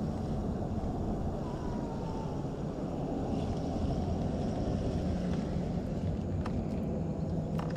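Steady low rumble of wind buffeting the microphone, with a couple of faint ticks near the end.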